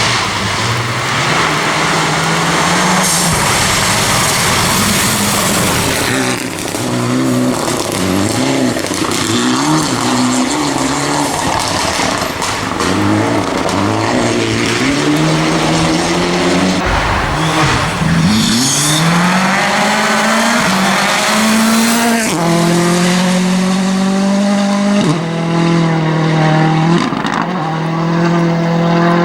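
Rally car engines driven hard, the revs climbing and dropping again and again through gear changes. About two-thirds of the way in the pitch dips low and then climbs steeply, and for the last several seconds the engine holds high revs with small steps in pitch.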